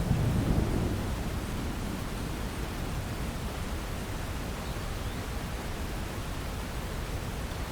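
Steady rain hiss, with the tail of a low thunder rumble fading out within the first second or so.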